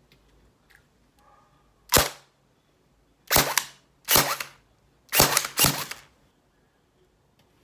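Airsoft electric rifle firing five single shots at an uneven pace, each a sharp crack of the gearbox's piston and spring cycling, with a short tail. The first comes about two seconds in, and the last two are close together.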